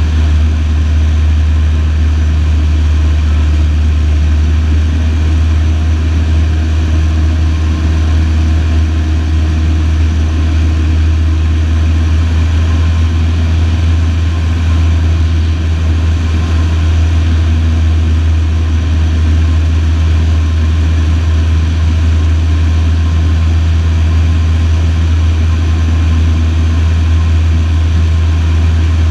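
Light single-engine piston aircraft's engine and propeller running steadily in flight, heard from inside the cabin as a loud, even drone.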